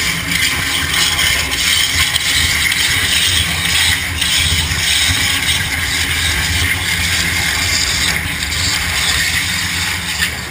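Waterjet cutter's high-pressure jet cutting plywood: a steady loud hiss with a low rumble underneath.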